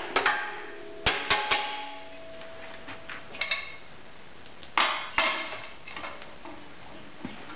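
A metal moulding flask being knocked against a sand muller's steel pan to shake out a poured sand mould: a series of sharp metallic knocks and clanks, a few ringing briefly. They come in clusters, about a second in, around three and a half seconds and around five seconds.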